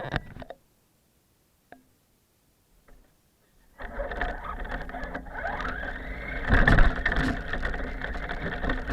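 A radio-controlled car's electric motor and gears whirring as it drives, starting suddenly about four seconds in after near silence, its whine rising in pitch as it speeds up and loudest about three-quarters of the way through.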